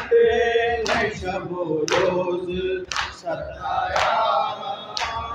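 A group of men chanting a noha, a Shia lament, in unison, with a sharp slap about once a second from matam: the mourners striking their chests together in time with the chant.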